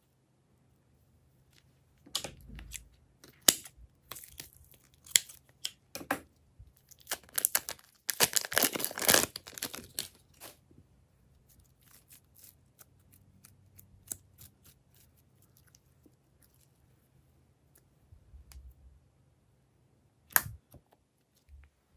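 Glitter slime being squeezed out of a plastic piping bag by hand, with crinkling of the bag and sticky crackles, densest from about eight to ten seconds in. Sharp clicks come a couple of seconds in and once near the end.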